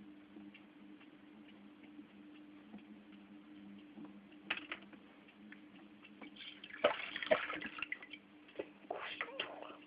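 Aquarium water sloshing and dripping with scattered light clicks, loudest in bursts about halfway through and near the end, over a steady low hum.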